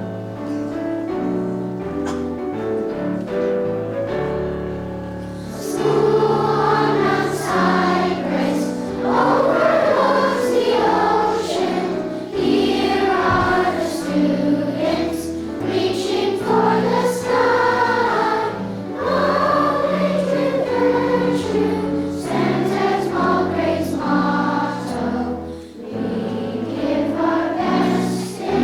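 A group of voices singing a song together with musical accompaniment. It is quieter at first and the singing grows louder about five and a half seconds in.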